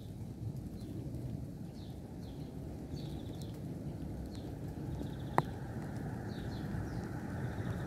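Outdoor street ambience: a low steady rumble with small birds chirping over and over. A single sharp click comes about five seconds in, and then the noise of an approaching vehicle builds toward the end.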